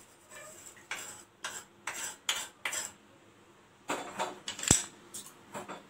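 A metal spoon scraping and clinking against a pan and a steel plate in a run of short strokes, then a few more after a brief pause with one sharp, ringing clink: dry-roasted neem flowers being scooped out of the pan.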